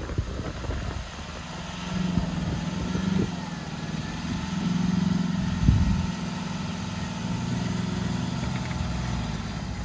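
Car engine revving under load during a snow recovery on a tow strap, swelling twice as the stuck front-wheel-drive car is pulled out of the snow. A single thump a little past halfway.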